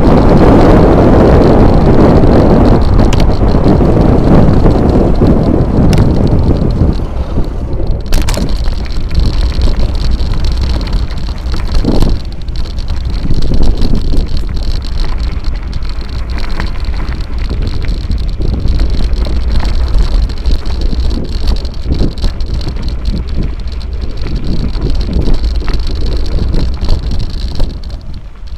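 Riding a bicycle: heavy wind buffeting on the microphone on the asphalt road, then tyres crunching and rattling over a rough gravel track from about seven seconds in, with scattered clicks and knocks from the bike. A steady high-pitched drone runs in the background.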